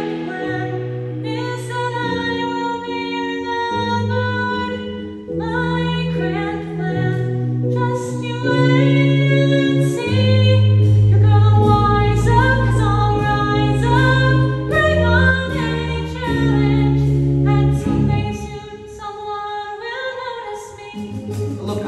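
A woman singing a musical-theatre song over instrumental accompaniment, with low bass notes changing about once a second; the music gets quieter near the end.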